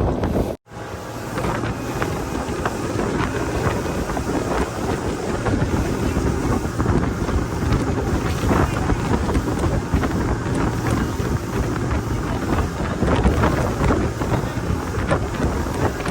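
Wind blasting the microphone over the rumble of a speedboat's engine and rushing water while the boat is under way. The sound cuts out for an instant about half a second in.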